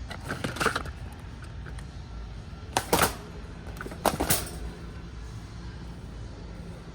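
Handling noise: three short rustling, scraping bursts, about half a second, three seconds and four seconds in, over a steady low hum.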